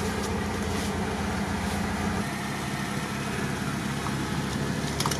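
Off-road vehicle engine idling steadily, its deepest rumble thinning out about two seconds in.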